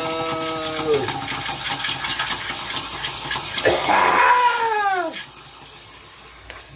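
Shower spray pattering into a glass and cup in a bathtub, under a person's voice making engine noises: a held tone for the first second, then a long falling tone about four seconds in. The water gets quieter about five seconds in.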